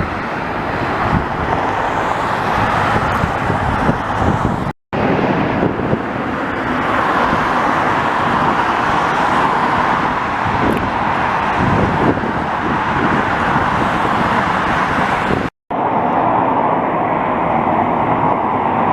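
Jet airliner engines heard as a steady, loud rush of noise, broken twice by brief dropouts where the recording cuts.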